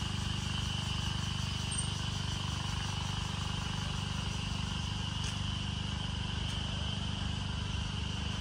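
Steady chorus of insects in the forest, a continuous high buzz that does not change, over a low steady rumble.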